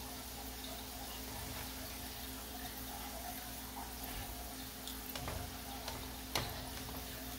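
Hot oil sizzling and crackling steadily around glutinous rice donuts deep-frying in a pan. Metal tongs click against the pan a couple of times near the end as the donuts are turned.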